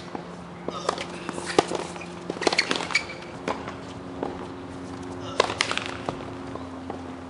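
Tennis ball struck back and forth with rackets and bouncing on a hard court: a string of sharp pops in the first three seconds, with the sharpest about a second and a half in, then a couple more near the middle. A low steady hum runs underneath.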